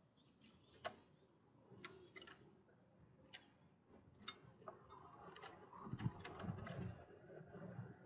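A great spotted woodpecker at a wooden feeder shelf with glass bowls: a string of sharp, irregular clicks and taps, with a cluster of soft low thumps about six to seven seconds in.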